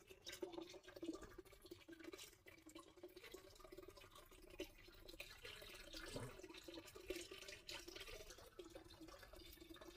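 Near silence: faint scattered clicks of batteries being handled and pressed into the battery holder of an irrigation controller.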